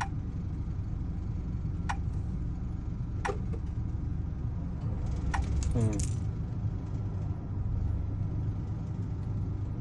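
Metal keys clicking a few times as they are handled, about two, three and five seconds in, over a steady low rumble like an engine idling.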